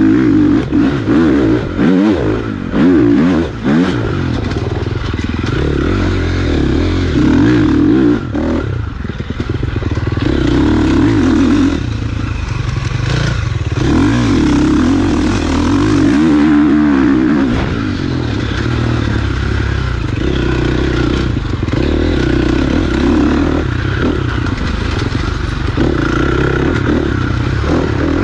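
Dirt bike engine revving up and dropping back again and again as the rider goes on and off the throttle, a surge every couple of seconds.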